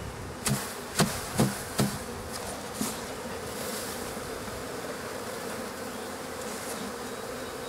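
Honeybee swarm humming steadily at an open hive, with about five sharp knocks in the first three seconds as the wooden swarm box is rapped to shake the last bees out.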